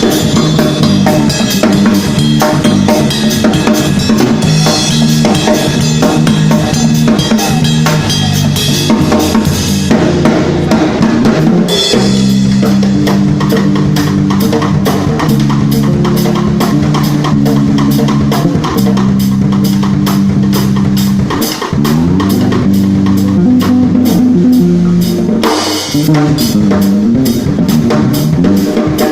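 Live band at a sound check: a drum kit keeps a steady beat with bass drum and snare over held low pitched notes that change every few seconds.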